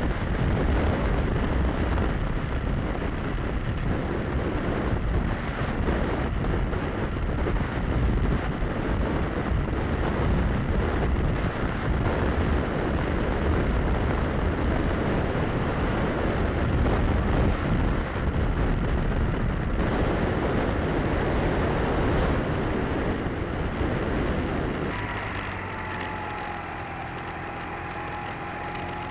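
Honda Rebel motorcycle riding along, its engine running under steady wind rush over the camera microphone. Near the end the wind drops as the bike slows and the engine note comes through clearly, then rises again.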